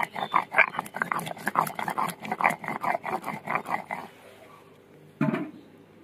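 Stone roller rubbed quickly back and forth on a stone grinding slab (shil-nora), grinding a wet paste of cumin, red chilli and ginger: rhythmic scraping strokes, several a second, that stop about four seconds in. A single short knock follows near the end.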